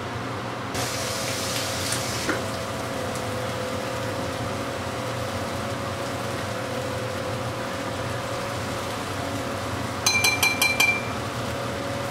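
Chicken breasts sizzling steadily in oil on a hot griddle over a gas burner turned up high. About ten seconds in, a quick run of metallic clinks as a fork touches the griddle.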